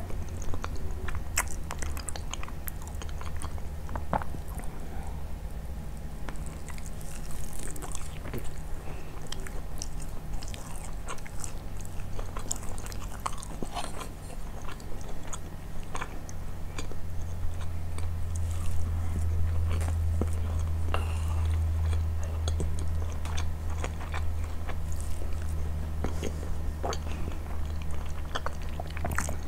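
Close-miked chewing and biting of grilled chicken and basmati rice, with many small crisp clicks scattered through it over a steady low hum.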